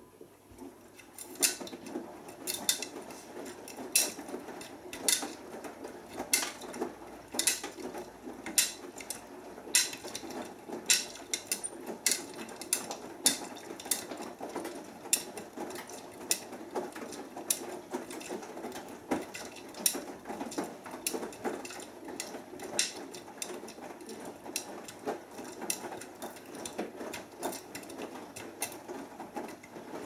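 Beko WMB81445L front-loading washing machine drum turning during the wash stage of a cotton 40°C cycle, with the wet load tumbling and sloshing. Sharp clicks come roughly once a second as the load drops against the drum. The drum starts turning about half a second in.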